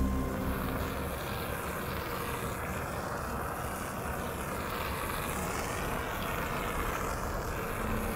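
A steady rushing noise with no clear tone or rhythm, like a whoosh or wind-like rumble.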